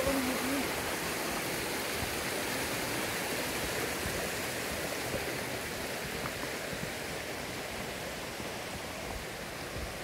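Mountain stream running over rocks: a steady rush of flowing water.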